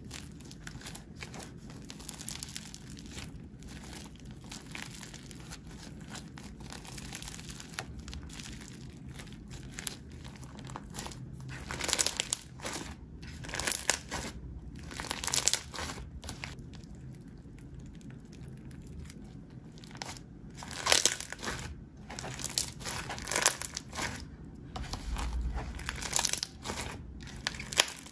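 Fluffy slime packed with foam beads being stretched, squeezed and pressed by hand, giving a dense run of small crackles and clicks. It grows louder in spells about twelve seconds in and again through the last third.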